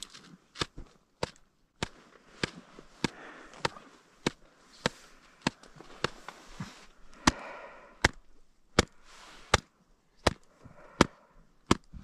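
Hand taps on an avalanche shovel blade laid flat on top of an isolated snow column in a compression test: a sharp knock about every two-thirds of a second, around twenty in all. The tapping loads the column to find whether a buried weak layer under the new-snow slab collapses, as a check on avalanche hazard.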